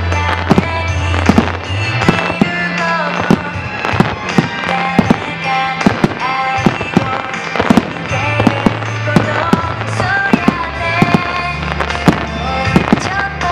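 Starmine firework barrage: aerial shells bursting in quick succession as sharp bangs and cracks, several a second, the loudest sounds throughout. A song with a singing voice and a steady bass plays underneath.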